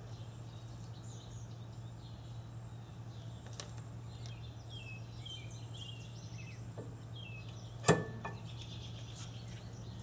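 A single sharp metallic click with a brief ring about eight seconds in, as brake caliper parts are fitted together by hand. Under it is a low steady hum, and faint bird chirps come and go.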